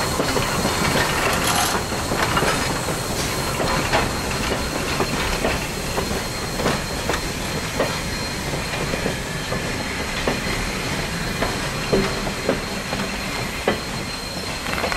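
Freight cars of a slow train rolling past: a steady rumble with irregular sharp clicks and clunks as the wheels pass over rail joints, under a thin steady high tone.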